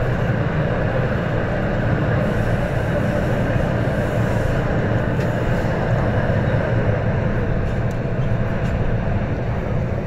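MTR M-train electric multiple unit running through a tunnel: a steady rumble of wheels and motors heard from inside the carriage.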